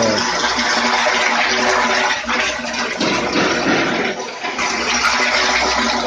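Water churning and splashing inside a stainless-steel brewing kettle as its agitator stirs it. A steady, loud wash of water noise.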